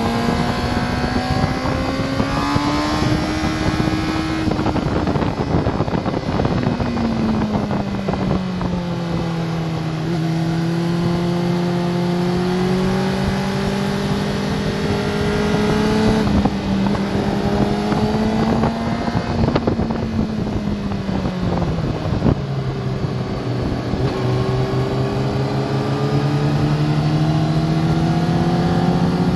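Sport motorcycle's engine heard from onboard at track speed, its revs climbing, dropping as it slows into corners, and climbing again near the end, over a steady rush of wind on the camera.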